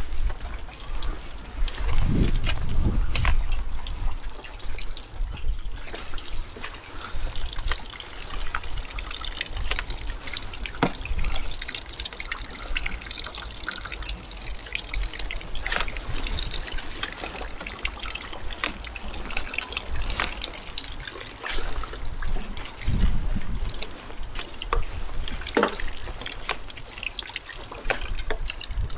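Water trickling and dripping in wet weather, with many small scattered ticks. Gusts of wind buffet the microphone about two seconds in, again around twenty-three seconds in, and at the end.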